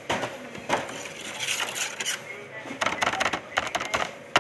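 Irregular clacks and taps of hands and dough working on a steel table and metal baking sheets as monay dough balls are shaped, with a quick run of clicks about three seconds in.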